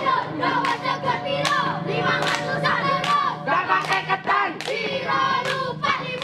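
A group of boys chanting and singing a scout cheer (yel-yel) in unison, with sharp hand claps cutting in throughout.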